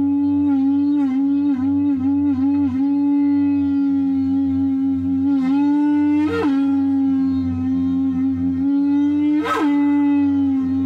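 Drone music: a held tone with strong overtones over a low hum. Its pitch dips and wavers several times in the first three seconds, and it makes two quick upward swoops about six and nine and a half seconds in.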